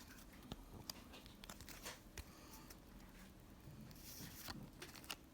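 Faint crinkling of a foil booster-pack wrapper being handled, with a few light ticks and a soft rustle about four seconds in.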